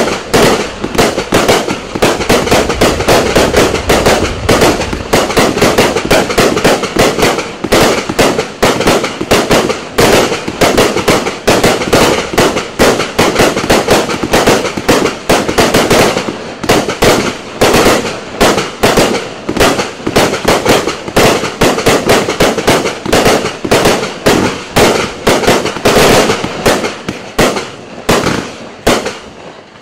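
Consumer fireworks cake (two 60-shot cakes fired as a pair, 120 shots in all) firing a fast, unbroken barrage of shots and aerial breaks, several bangs a second, thinning out near the end.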